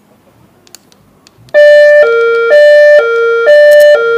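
Loud two-tone hi-lo siren, starting about a second and a half in. It alternates steadily between a higher and a lower note, each held about half a second.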